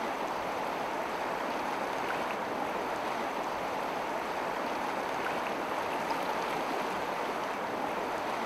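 Shallow, fast-flowing river rushing steadily over a stony bed.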